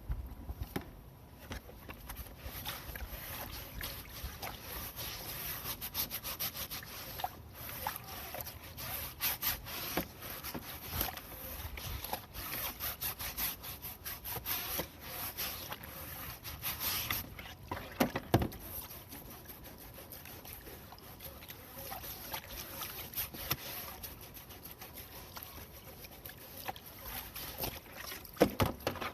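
Scrubbing a perforated kitchen exhaust-fan filter during cleaning: irregular rubbing and scraping strokes, with a few louder knocks, one about two-thirds of the way through and another near the end.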